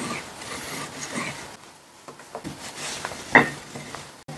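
Wooden rolling pin rolling and rubbing over pasta dough on a floured marble countertop, with one short louder knock about three and a half seconds in.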